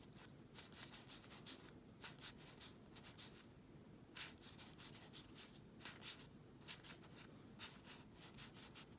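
Pokémon trading cards being slid one past another in the hand, a faint, irregular run of papery swishes and soft clicks, several a second.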